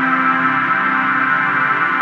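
Ambient music: sustained, layered synthesizer-like tones holding steady without a beat.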